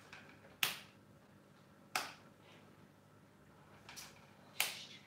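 Four sharp, short clicks at uneven intervals, the one near four seconds fainter than the rest.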